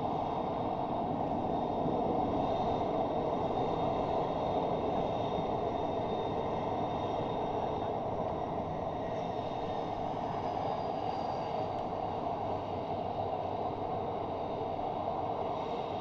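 Lockheed Martin F-35A fighters' turbofan engines running at taxi power, heard from a distance as a steady rumble with a faint high whine.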